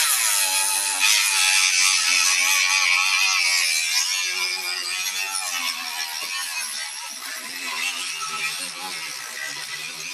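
Dremel rotary tool with a cutting disc running at high speed and cutting into a section of Kato Unitrack: a steady high whine over a grinding hiss, its pitch wavering as the disc bites.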